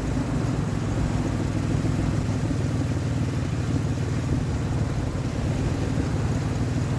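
2003 Ford Explorer engine idling steadily with a spare ignition coil fitted in place of the bad coil that was causing its misfire.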